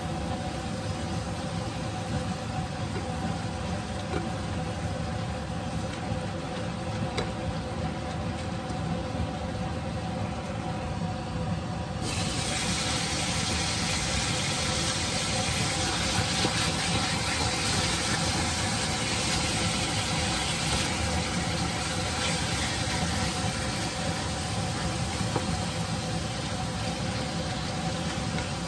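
Chicken liver, onions and garlic sizzling in a frying pan over a steady mechanical hum; the sizzle gets suddenly louder about twelve seconds in.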